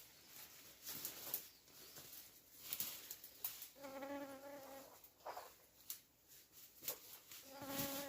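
A flying insect buzzing twice, each steady drone about a second long, among scattered clicks and rustles.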